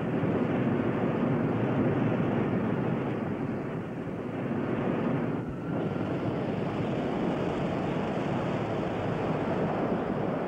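Rocket sled running down its track: a steady rushing noise from the run, which dips briefly about five and a half seconds in.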